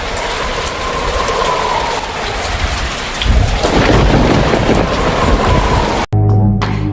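Steady heavy rain with thunder rumbling, the rumble swelling about three seconds in. About six seconds in it cuts off abruptly and music takes over.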